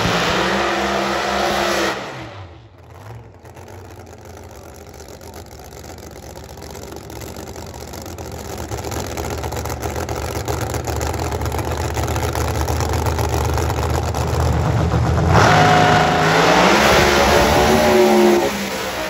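Drag racing car engines at high revs. A loud, revving engine cuts off about two seconds in. A lower, steady engine rumble then builds slowly, until a loud engine rev with rising pitch breaks in near the end.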